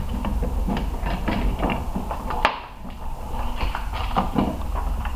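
Small irregular clicks and knocks of hands handling an LPG filler valve and its bracket in a car's fuel-filler recess, with one sharper click about halfway through, over a steady low rumble.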